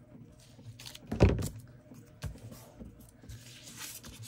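Scissors and a paper page handled on a cutting mat: a dull thump about a second in, a few lighter knocks, and a soft paper rustle near the end.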